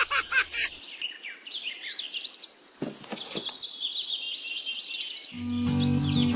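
Birds chirping, many short quick calls overlapping high up. Near the end, music with held low notes comes in under them.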